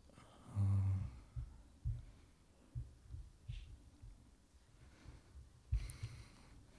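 Soft, low thumps and knocks picked up by a lectern microphone as people handle the lectern and its equipment beside it, several in a row with a longer low rumble about half a second in.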